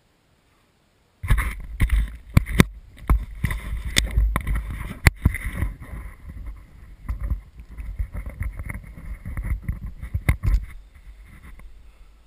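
Skis scraping and swishing through slushy spring snow on a steep descent, with wind rumbling over the camera microphone and sharp knocks from the skis and poles. It starts suddenly about a second in and dies down near the end.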